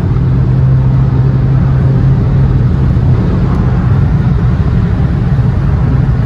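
Abarth's engine running at steady revs with tyre and road rumble, heard from inside the cabin while driving.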